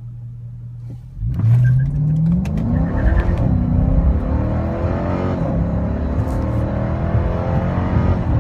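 Dodge Charger R/T's 5.7-litre HEMI V8 accelerating. Its note starts low and steady, climbs from about a second in, drops at upshifts about three and five seconds in, then holds steady.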